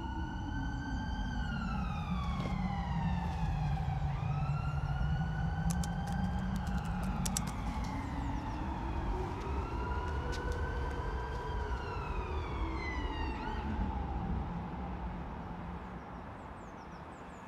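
A wailing siren whose pitch rises and falls slowly, about once every four to five seconds, over a low rumble. There are a few faint clicks partway through, and it fades away near the end.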